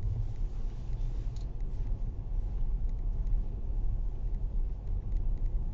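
Car driving on a snow-covered road: a steady low rumble of engine and tyres, with faint scattered ticks over it.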